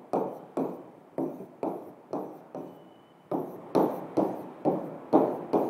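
Marker strokes knocking against a whiteboard as digits are written in a row, about two short taps a second, pausing briefly about halfway through.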